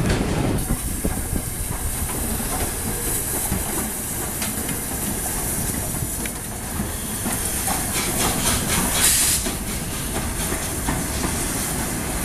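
LNER Peppercorn A1 steam locomotive 60163 Tornado hissing steam steadily over a low rumble, the hiss strongest about three-quarters of the way through, with a few short clicks.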